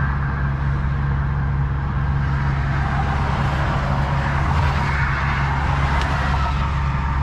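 Volvo VNL semi truck's diesel engine idling steadily, heard from inside the cab, with highway traffic going by.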